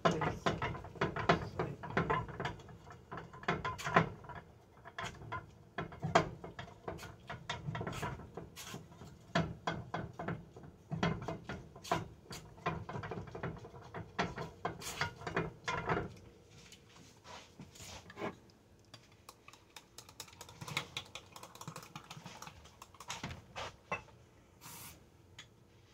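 A kitchen utensil clattering rapidly against a pan as pancake batter is stirred. The clicking and knocking is dense for about the first sixteen seconds, then thins to scattered taps.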